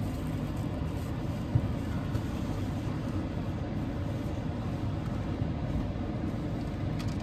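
Steady low rumble of a car's engine heard from inside the cabin, with one light tap about a second and a half in.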